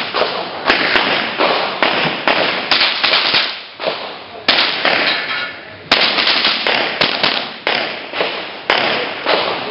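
Rapid shots from a .22 rimfire mini-rifle, about fifteen in quick strings of roughly two a second, each with a short ringing tail, broken by two brief pauses near the middle.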